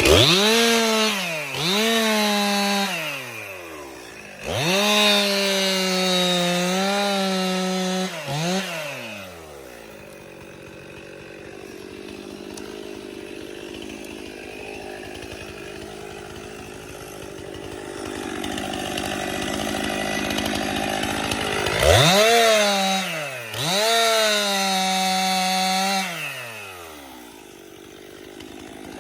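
Two-stroke chainsaw revved to full speed in short bursts, its pitch jumping up and sagging back each time. It drops to a low idle for about twelve seconds in the middle, then revs up twice more near the end.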